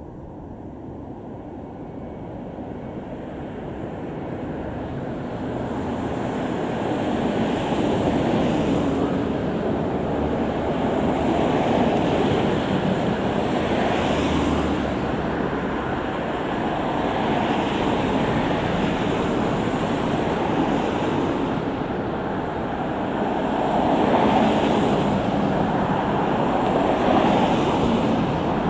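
Fukushima Kotsu 7000 series electric train approaching and rolling through a level crossing: a noisy rumble that builds over the first several seconds, then holds, swelling and easing every two or three seconds.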